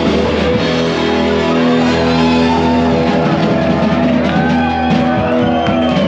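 Live rock band playing loud, with electric guitar chords and vocals.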